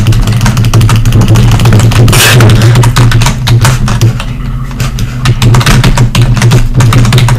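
Loud, bass-heavy music: a heavy sustained bass note under a fast, dense beat, with a short burst of noise about two seconds in and a thinner, quieter stretch around the middle.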